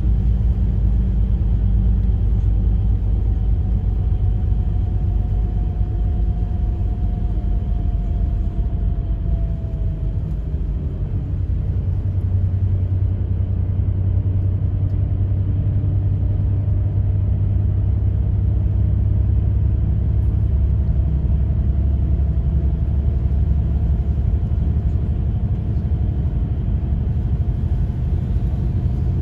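Bus engine and road rumble heard from inside the cabin, a steady deep drone. A faint whine slides down in pitch about five to ten seconds in and later climbs again.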